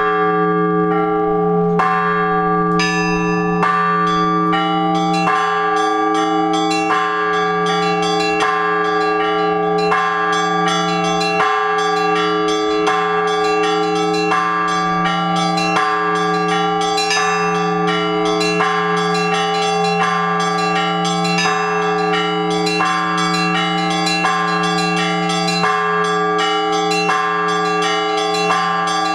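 Orthodox church bells rung in a peal: several bells struck in a steady run of about two strokes a second over the long, sustained hum of a large bell.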